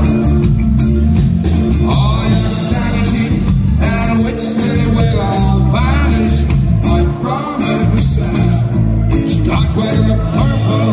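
Live band music: acoustic guitar, electric bass and drum kit playing an upbeat rock song, with a man singing into the microphone.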